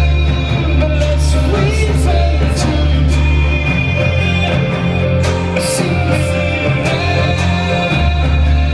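Live music played loud through a club PA: a deep bass line holding each note for about a second, with cymbal hits now and then.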